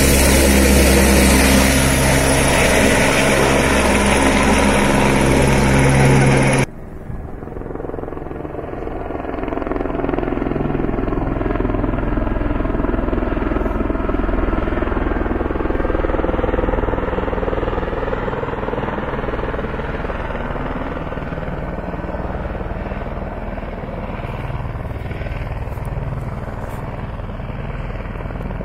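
Airbus H125 (AS350 Ecureuil) single-engine helicopter, loud and steady while hovering close overhead. About six and a half seconds in the sound drops abruptly to the same helicopter heard far off, a steady rotor and engine sound that fades slowly toward the end.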